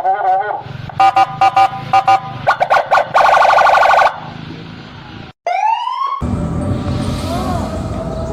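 Toy police car's electronic siren sound effects, cycling through several patterns: a warble, a run of short beeps, a fast trill, a loud steady tone lasting about a second, then a few quick rising whoops.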